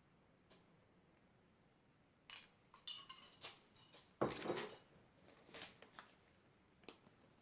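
A utensil clinking and tapping against a container in scattered bursts, with a louder knock about four seconds in, while more borax activator is worked into slime.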